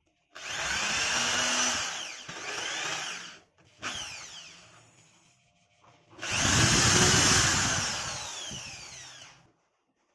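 Electric drill boring pilot holes into a wooden board: two runs of about three seconds each and a short blip around four seconds in, each winding down with a falling whine as the trigger is released.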